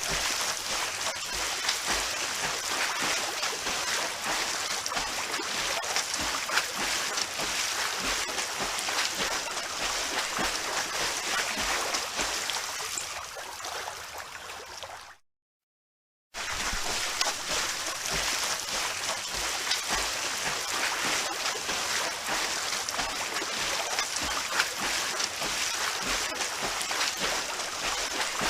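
Swimming in a pool: a steady churn of water splashing from strokes. Just past halfway it fades, cuts to silence for about a second, then picks up again.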